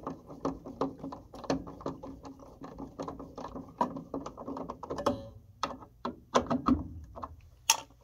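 Hand screwdriver ratcheting as it tightens the mounting screw of a furnace pressure switch: a run of quick clicks, about three or four a second, thinning to a few sharper clicks in the last seconds.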